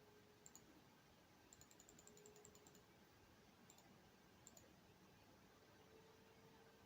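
Near silence, with faint, sharp clicks of a computer mouse: a few single clicks and a quick run of about ten clicks around two seconds in. Under them is a faint steady hum, and a faint steady tone comes in near the end.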